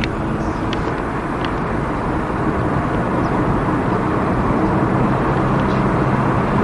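Car engine and road noise inside the cabin of a moving car: a steady low hum under an even rush.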